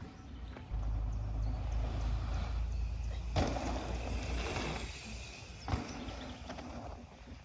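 Wind rumbling on the microphone, with a mountain bike's tyres rolling and crunching over a dirt trail as the rider passes, a burst of noise starting sharply about three and a half seconds in and lasting about a second, then a short click.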